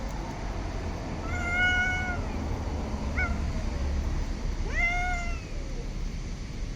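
Stray cat meowing: two long, drawn-out meows with a short chirp between them.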